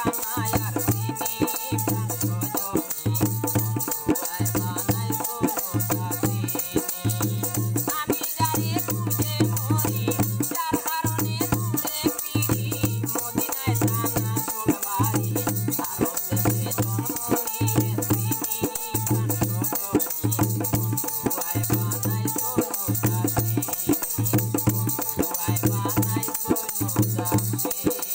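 Baul folk song played on a dhol barrel drum, a bowed violin and a hand shaker, with a man singing. The shaker rattles steadily over a regular drum beat.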